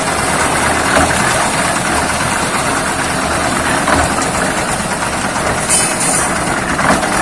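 Concrete mixer (molen) engine running steadily on site. A short hissing burst comes near the end.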